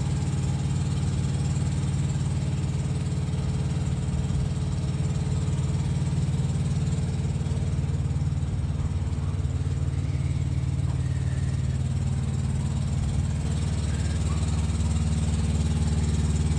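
A Detroit diesel engine in a 2020 Freightliner truck idling with a steady, even low hum, a little louder near the end.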